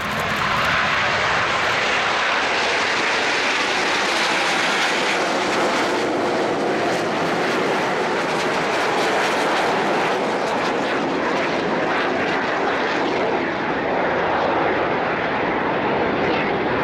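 Formation of Aermacchi MB-339 jet trainers taking off and flying low overhead: loud, steady jet engine noise.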